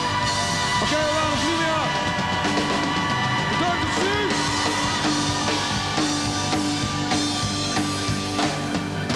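A live rock band playing: drum kit with cymbals and amplified instruments. From about two and a half seconds in, a note is repeated over and over.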